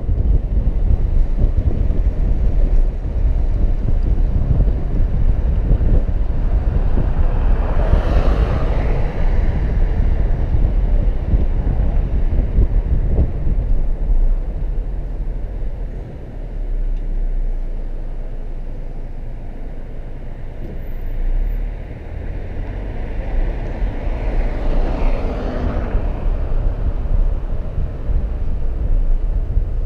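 Wind buffeting the microphone over the rumble of road noise from a car driving along a city street. Two passing vehicles swell up and fade, about eight seconds in and again about twenty-five seconds in. The rumble drops for several seconds in between.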